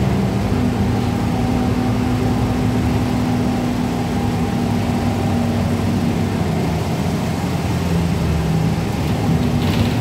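Inside a 2012 Gillig Advantage low-floor transit bus on the move: a steady engine and drivetrain drone with road and tyre noise. A held engine tone fades about six seconds in.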